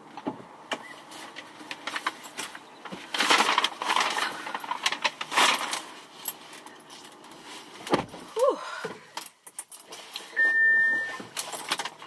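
Handling noises inside a car: bags rustling, things clicking and knocking as someone gets out and back in with shopping, then a short steady electronic beep from the car near the end.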